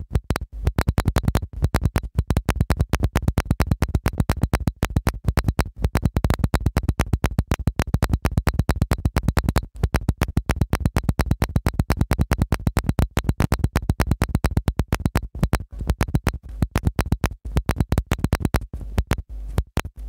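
Background electronic music made of a rapid, stuttering train of sharp clicks, several a second, which cuts off suddenly at the end.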